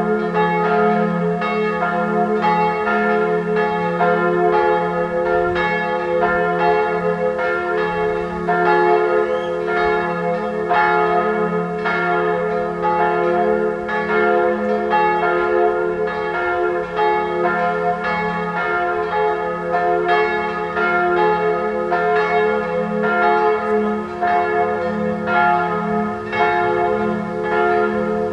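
Full peal of three church bells ringing together: two 1979 Perner bells tuned to F and A-flat (a minor third) and a small B-flat bell an octave higher, cast around 1799. The strikes follow one another continuously in an irregular overlapping pattern, with the bells' hum and overtones ringing on beneath them.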